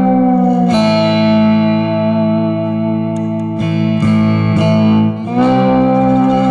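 Background music: sustained, held guitar-like notes with effects, changing pitch every second or two.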